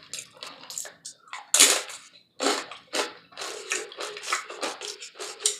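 Close-miked chewing and wet mouth sounds from eating taco salad and nachos: irregular smacks and crunches, several a second.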